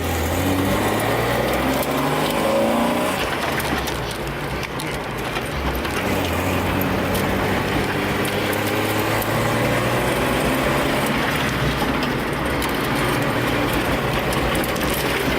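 BMW E36's engine accelerating under load, its pitch rising over the first few seconds, easing off, then climbing again, with steady road noise underneath.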